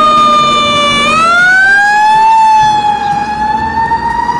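Fire truck siren wailing: one long, loud tone that sinks slightly, rises from about a second in, then holds high and edges up.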